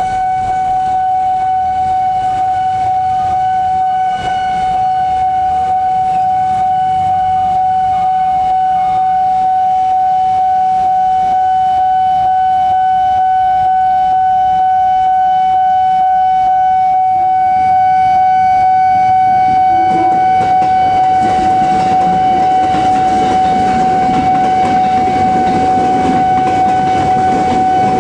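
Level-crossing warning alarm sounding one steady, unbroken tone, over the steady hiss of heavy rain. Late on, a louder low rumble builds as a train draws near the crossing.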